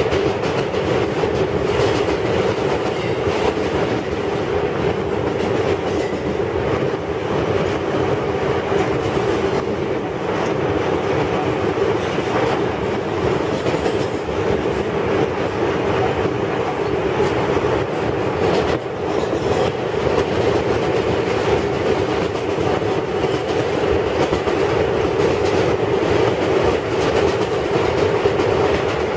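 Kawasaki R142A subway car running at speed, heard from inside the car: a steady rumbling hum with the wheels clicking over rail joints at uneven intervals.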